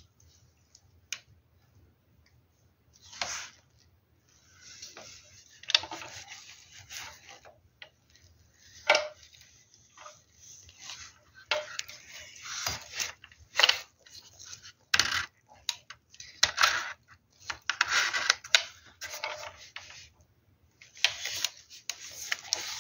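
Gloved hand handling a toy Lee-Enfield No. 1 Mk III blaster: irregular rubbing and rustling along the stock, broken by sharp clicks and taps of its plastic and metal parts.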